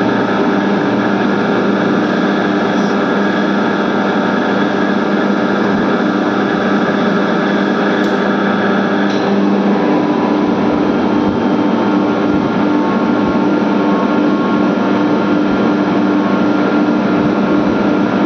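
ELGi rotary screw air compressor running with a steady hum. About nine seconds in there is a click and the tone changes as the compressor switches from unloaded to loaded running, its discharge pressure having dropped to about 6 bar.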